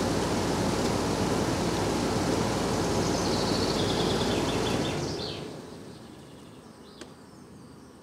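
Pool air source heat pump running with its compressor hum, fan and the pool water flowing through it, then winding down about five seconds in. It shuts itself off through its flow switch because the pool's circulation pump has been stopped. A single click follows near the end.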